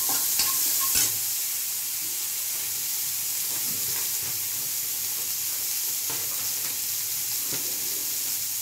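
Black chickpeas frying in oil in a steel kadai, with a couple of metal-spoon scrapes and taps against the pan in the first second, then a steady sizzle.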